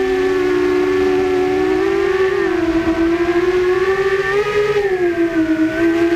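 Quadcopter's electric motors and propellers whining, heard from the drone's onboard camera. It is a steady, loud whine that wavers gently up and down in pitch as the throttle changes.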